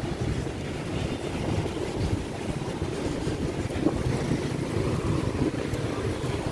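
Wind rumbling on the microphone over the steady noise of city street traffic.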